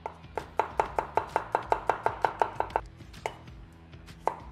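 Chinese cleaver chopping on a bamboo cutting board, slicing garlic in a quick, even run of about six or seven chops a second. This is followed by two single cuts into a cucumber near the end.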